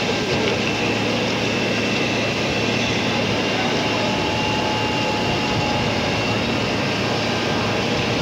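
Fire-engine pumps running with a steady drone while a hose plays water onto the burning church roof, with a crowd talking underneath.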